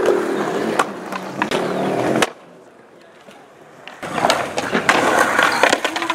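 Skateboard wheels rolling on concrete with sharp clacks of the board striking the ground, broken by a quieter stretch in the middle. Near the end, the board clatters on the concrete as a skater falls.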